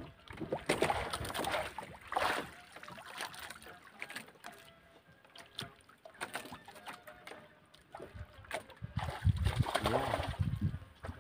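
Water lapping and splashing against the hull of a wooden outrigger canoe in irregular washes, with a low rumble near the end.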